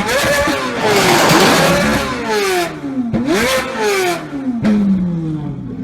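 Ferrari 458 GT3 race car's straight-piped V8 being free-revved hard, its pitch climbing and falling again and again, with a few sharp exhaust cracks, then dropping away in a long fall near the end.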